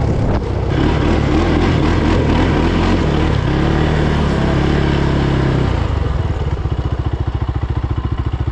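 Adly 500S quad's engine running at shifting revs as it pulls over gravel. About six seconds in it settles to a steady low-rev chug of roughly a dozen pulses a second.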